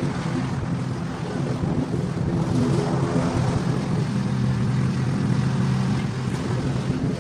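Small petrol engine running steadily under load, its low hum carried over a rushing noise.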